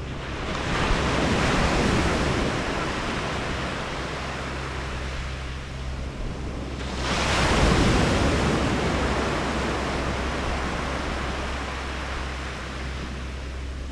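Surf breaking on a sandy beach: one wave washes in about half a second in, and a second, sharper one breaks about seven seconds in and then slowly fades. A steady low rumble of wind on the microphone lies underneath.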